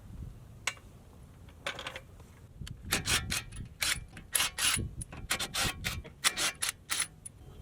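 Ratchet wrench working in quick, irregular strokes, short rasping clicks one after another, typical of lug nuts being run during a wheel change. A couple of single clicks come first, and the steady ratcheting starts a little over two seconds in.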